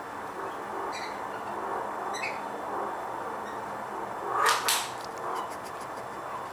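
Australian magpies playing: two faint short calls about one and two seconds in, then two sharp, harsh squawks in quick succession about four and a half seconds in, followed by a quick run of light ticks.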